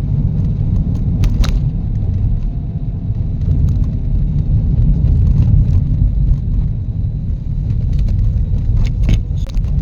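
Steady low rumble of a car driving on the road, with a few short clicks.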